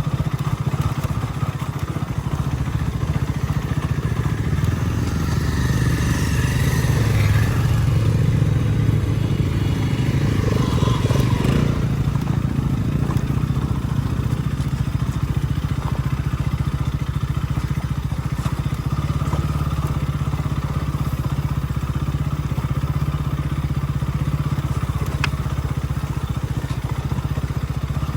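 Motorcycle engine running steadily under way, likely the uploader's KTM 160. The revs rise and fall about six seconds in and again around ten to twelve seconds.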